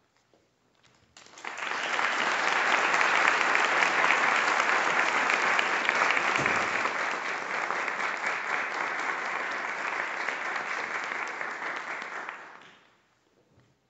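A small audience applauding, starting suddenly about a second in, holding steady, and dying away near the end.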